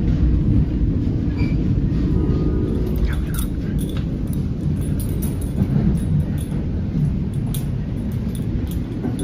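Steady low rumble of an NJ Transit Comet V passenger coach running along the track, heard from inside the car, with scattered light clicks from about three seconds in.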